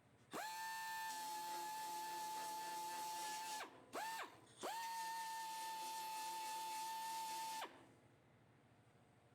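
Small electric power tool motor whining at a steady high pitch. It spins up quickly, runs for about three seconds, stops, gives a short blip, then runs about three seconds more and winds down.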